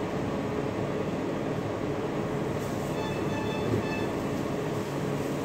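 Steady whirring hum of a rolled-ice-cream cold-plate machine's refrigeration unit running. Faint short high tones repeat from about halfway through.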